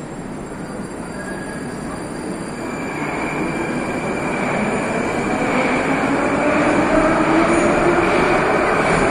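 Metro train pulling out of the station: its traction motors whine and slowly rise in pitch as rolling noise builds and grows steadily louder. A steady high whine joins about three seconds in.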